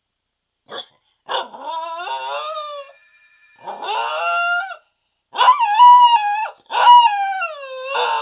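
Pembroke Welsh Corgi howling: a short yip, then four drawn-out howls that waver and slide down in pitch at their ends, the last two the loudest.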